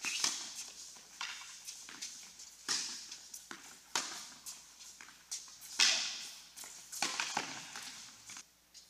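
Tennis ball being struck by racquets and bouncing on an indoor hard court during a doubles rally: sharp pops about every second, each echoing briefly in the hall.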